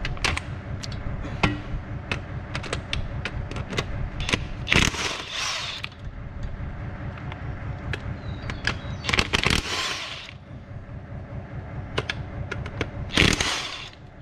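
An impact wrench rattles in three short bursts about four seconds apart, undoing the retaining bolts of a tractor's reversible PTO stub shaft. Small clicks and a steady low hum run beneath.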